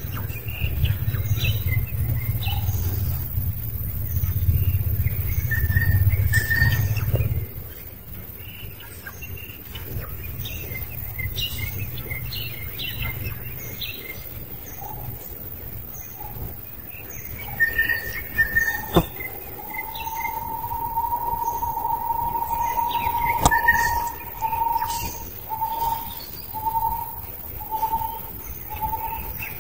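Forest birds chirping and calling, many short high chirps throughout, over a low rumble that stops about seven seconds in. From about twenty seconds a long, steady whistled note runs for some four seconds, then breaks into shorter notes about once a second, with two sharp clicks in between.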